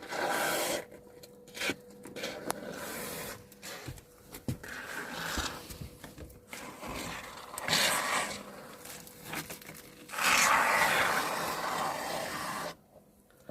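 Spray foam hissing from the can in intermittent bursts as holes in a rusted van floor are filled, with scraping between the bursts. The longest spray comes about ten seconds in and lasts nearly three seconds.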